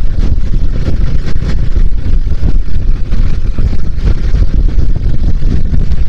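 Wind buffeting the microphone of a handlebar-mounted phone on a moving Bajaj Dominar motorcycle, a loud, fluttering rumble over the bike's running engine and tyre noise.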